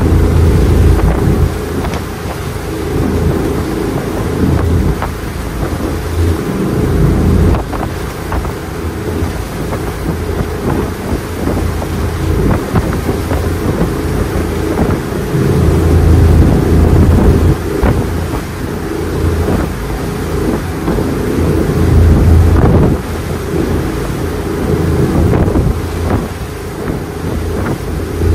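Power boat motor running steadily at cruising speed, a low hum with rushing water against the hull and wind buffeting the microphone in uneven gusts.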